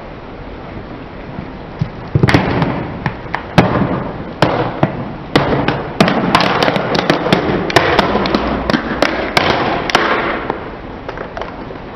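Hard plastic mask cracking and crunching under a slowly rolling car tyre: a dense run of sharp snaps and crackles that starts about two seconds in and dies away near the end.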